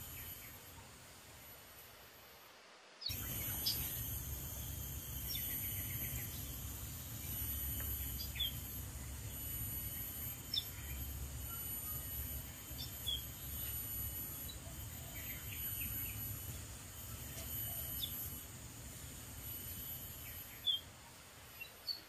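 Outdoor background of a steady high insect drone with short, high bird chirps scattered through it and a low rumble underneath. Everything gets suddenly louder about three seconds in.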